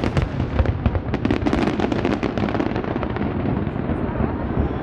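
Fireworks display: a rapid string of bursts and crackles over a continuous low rumble, densest in the first two seconds or so and then thinning out.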